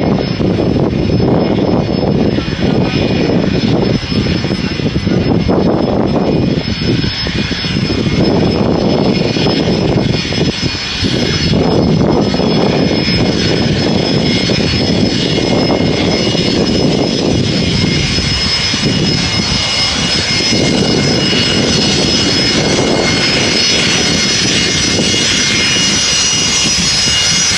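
Fokker 100's two rear-mounted Rolls-Royce Tay turbofans running at taxi power: a steady low rumble with a high-pitched whine that grows clearer in the second half as the jet comes closer.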